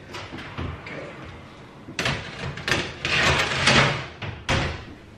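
A metal roasting tray being slid back into an oven, with clattering and scraping, then the oven door shutting with a sharp knock near the end.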